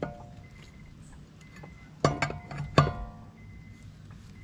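Steel lug wrench clinking on the lug nuts as they are snugged up on a steel wheel: a faint click at the start, then three sharp metallic clanks about two to three seconds in, each ringing briefly.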